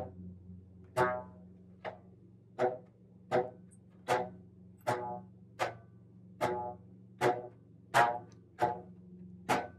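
Stretched rubber bands on a homemade rubber band instrument being plucked one after another, about thirteen plucks at a steady pace. Each gives a short twangy note that dies away quickly, and the pitch changes from band to band.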